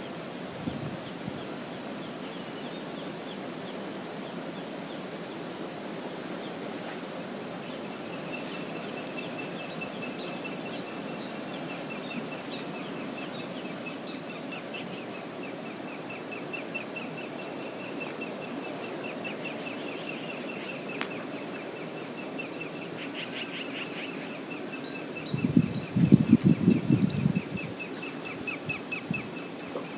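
Steady rushing of the Brooks River, with a small bird trilling over it from about a quarter of the way in and a few sharp high ticks early on. Near the end a louder low rush lasts about two seconds.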